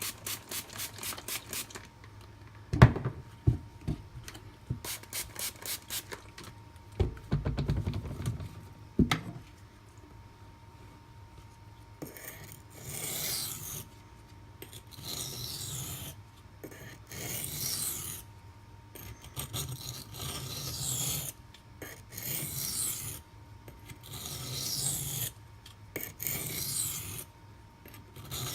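A Maxamet steel knife blade scraping back and forth across a coarse 240-grit silicon carbide sharpening stone. It starts with quick short passes, then a few sharp knocks and a heavier rubbing about seven seconds in. From about twelve seconds it settles into slower, longer strokes about once a second, as the burr is cleaned up.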